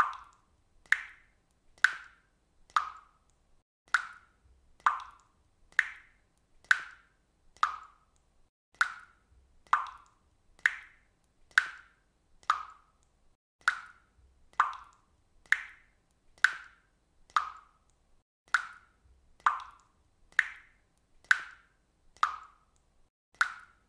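Water dripping from a faucet: single drops plopping into water, evenly paced at about one a second, each a short pitched plop that dies away quickly.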